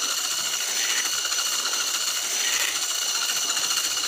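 Electric hand mixer running steadily with a high motor whine, its beater churning through thick cake batter.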